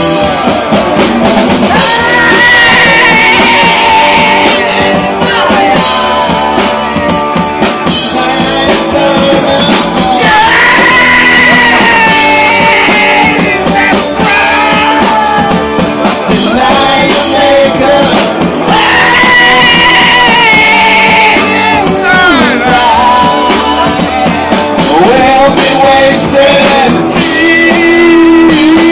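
Live rock band playing loud, with a lead singer holding long notes over guitar and drums; the sound is thin, with little bass.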